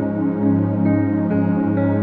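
Calm ambient background music: sustained keyboard chords over a steady bass, with notes changing about every half second.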